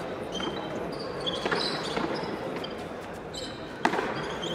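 Frontón a mano rally: a hard handball ball struck by hand and cracking off the wall and concrete floor a few times, the loudest hit about four seconds in, ringing in the large court, with short squeaks of players' shoes.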